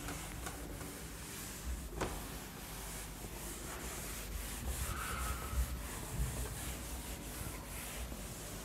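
Cloth duster rubbing across a whiteboard in repeated wiping strokes as marker writing is erased, with one sharp click about two seconds in and a short squeak around halfway.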